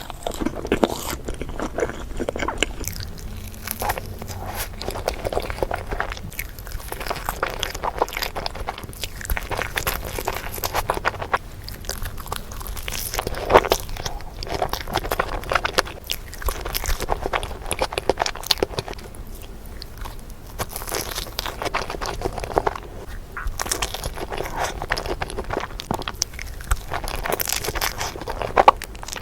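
Close-miked eating of a cream-filled crepe: repeated bites and chewing, with dense crackling clicks coming in clusters separated by brief pauses.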